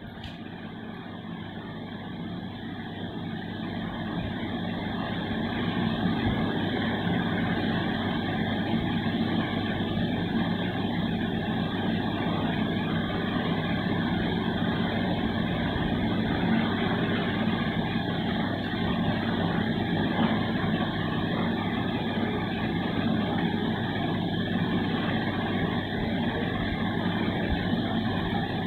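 Steady mechanical droning noise, like a motor running, that grows louder over the first few seconds and then holds level.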